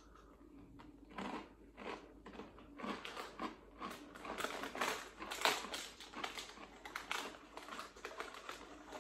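A person chewing a hard, crunchy reduced-fat Jacob's Mini Cheddars Nibblies cheese cracker, with crisp crunches about twice a second starting about a second in.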